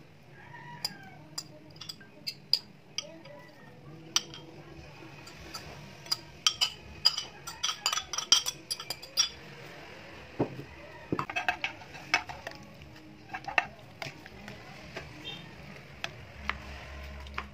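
Metal fork and spoon clinking and scraping against glass bowls and a ceramic pot as chopped ingredients are tipped in and stirred. Irregular sharp clinks, thickest in a run a third of the way in and again a little after the middle.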